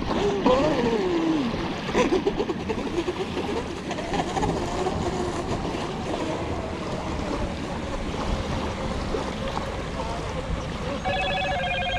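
Electric motor of a Pro Boat Blackjack 42 RC catamaran whining as it runs on the water, its pitch rising and falling with the throttle. Near the end it holds a steadier, higher whine. Wind noise on the microphone runs underneath.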